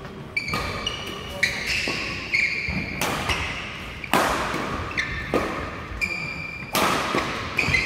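Badminton rackets hitting a shuttlecock in a fast doubles rally, a sharp crack about every half second to second, with short high squeaks from court shoes in between.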